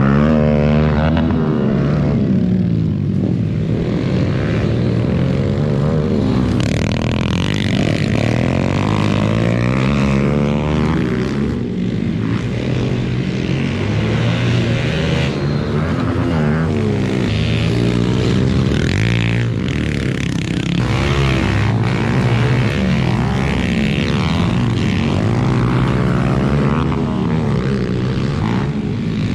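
Pit bike engine revving up and down over and over, loud and close, as the bike rides the dirt track.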